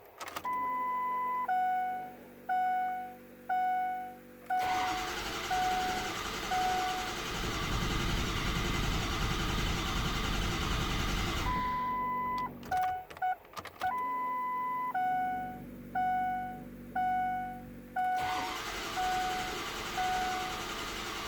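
Ford diesel engine cranked by its starter twice, each time for several seconds, without catching. Before each attempt the dashboard chimes beep about once a second. The engine will not start even after the IPR valve was cleaned.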